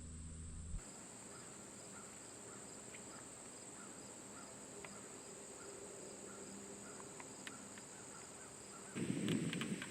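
Evening insect chorus: a steady high-pitched drone with crickets chirping about twice a second. About nine seconds in, louder rustling and crunching starts.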